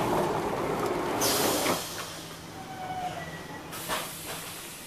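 Automatic interior door of a Swiss passenger coach sliding open with a loud rush of noise lasting about a second and a half, then a shorter rush about four seconds in, over the steady low hum of the standing train.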